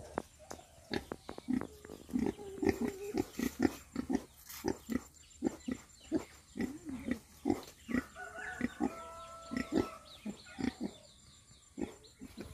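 Two domestic pigs grunting repeatedly in their pen, short grunts coming a few per second.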